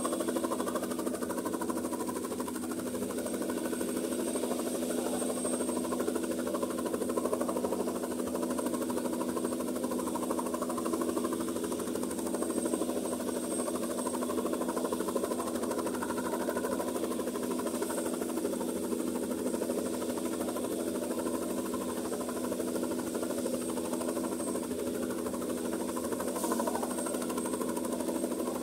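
Light helicopter running on the ground with its main rotor turning before lift-off: a steady engine and rotor drone with a thin high whine over it.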